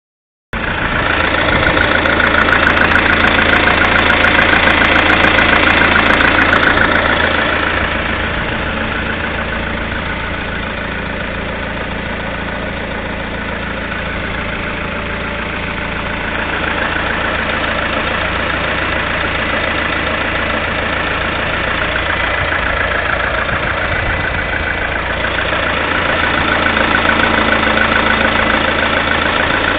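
Lada Kalina 1.6 16-valve four-cylinder engine running at idle with a knock from inside the engine, which the owner takes for piston knock on a nearly new engine of 2,100 km.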